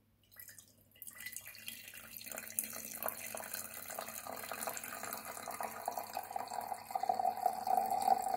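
Celery-peel broth poured from a saucepan in a thin stream into a glass teapot, starting about a second in and splashing steadily as the pot fills.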